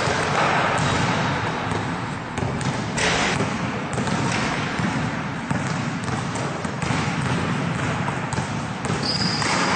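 Basketballs bouncing on a hard indoor court floor, several at once, in an irregular patter of thuds.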